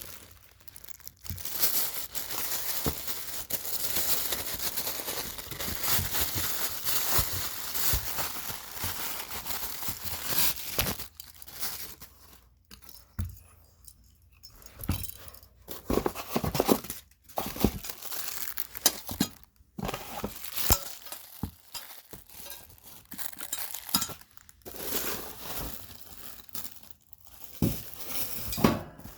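Packing material being torn and crumpled as a ceiling fan motor is unwrapped from its box: continuous rustling for roughly the first ten seconds, then shorter bursts of rustling with occasional knocks and clinks.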